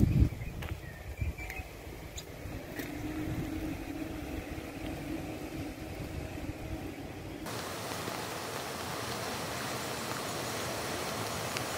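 A low rumble with a faint steady hum, then, about seven and a half seconds in, a steady rushing hiss of a river in flood.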